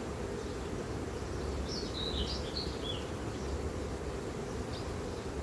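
Honey bees from an opened hive humming steadily, with a bird singing a short chirping phrase about two seconds in.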